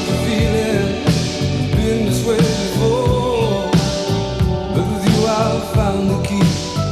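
A rock song played from a vinyl record: a singing voice over a band with a steady beat.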